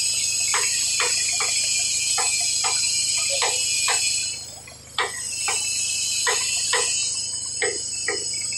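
Sharp clicks about twice a second from hand-tool work on a haul-truck wheel hub, over a steady high-pitched hiss that drops out briefly a little past four seconds.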